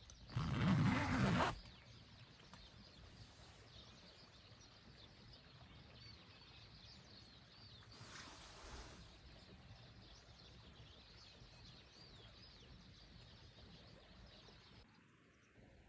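A short, loud rustle of fabric about half a second in, then faint, continual chirping of small birds heard from inside a parked car.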